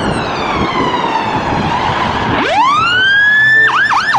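Fire engine siren on an emergency run. It sounds a slow wail that winds down, rises steeply again about two and a half seconds in, and switches to a fast yelp near the end. Engine and road noise runs underneath.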